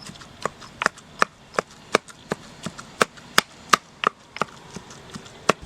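Sharp chopping knocks on a wooden board, in a steady rhythm of about three strokes a second.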